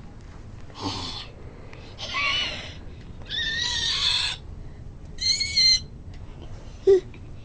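Baby's high-pitched squeals: four short, wavering squeals about a second apart.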